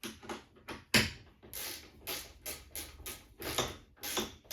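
A quick run of short rasping strokes, about three or four a second, from a clamp fitting on a track saw guide rail being worked snug by hand, with a sharper knock about a second in.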